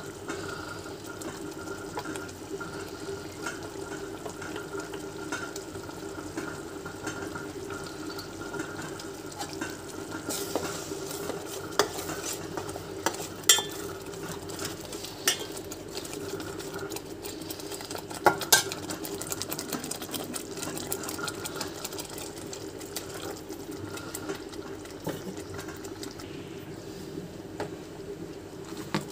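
Thick masala gravy simmering and bubbling in a steel pot over a steady low hum. A handful of sharp clicks come between about 10 and 19 seconds in.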